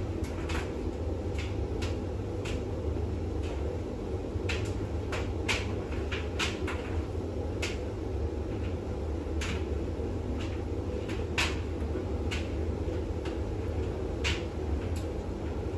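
Bosch WAX32GH1 washing machine in the intermediate spin of a full Cottons wash: a steady low motor and drum hum, with irregular light clicks and knocks roughly every second.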